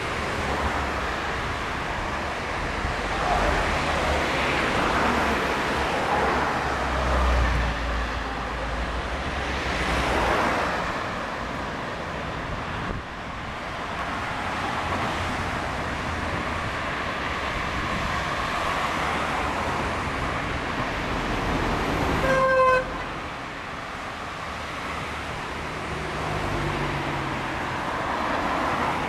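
City road traffic, with cars driving past one after another, their noise swelling and fading. About three quarters of the way through, a car horn gives one short honk.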